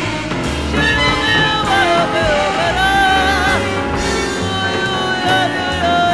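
Background music: a song with a wavering melodic lead over a full band accompaniment.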